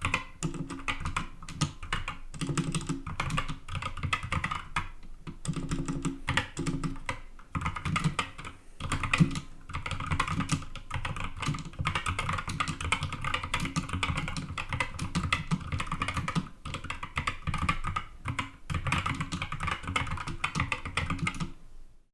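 Fast continuous typing on a stock Skyloong SK61 60% keyboard with Gateron Optical Red linear switches: a dense run of keystroke clacks with brief pauses between bursts.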